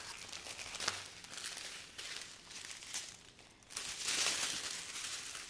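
Plastic bags of resin diamond-painting drills crinkling as they are handled, with the loudest rustle about four seconds in.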